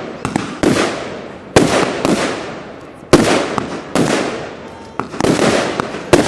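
Fireworks going off: about six loud, sharp bangs roughly a second apart, each trailing off as it fades.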